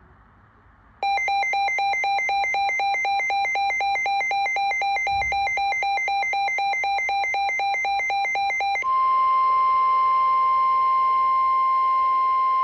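Emergency alert tones: about a second in, a buzzy electronic two-tone warble starts, flipping rapidly and evenly between two pitches for about eight seconds. Then a single steady alarm tone, like the weather radio warning tone, takes over over a light hiss.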